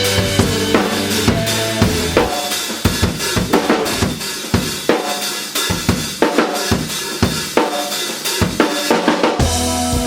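Drum kit playing in a band recording, built around a 5.5 by 14 inch maple snare drum with brass snare wires: rapid snare and kick drum hits. The other instruments drop out about two seconds in, leaving mostly drums, and the full band comes back in near the end.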